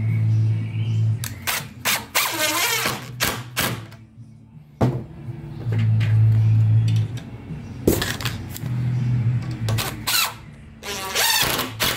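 A DeWalt 18V cordless impact driver driving wood screws through a metal hanging bracket into the top of a door, hammering in three short runs of about a second each, near the start, about six seconds in and about nine seconds in. Sharp clicks and high squeaks come between the runs.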